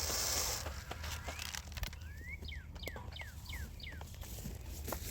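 A bird calling: a run of five quick whistled notes, each sliding downward, near the middle, over scattered light crunches and clicks.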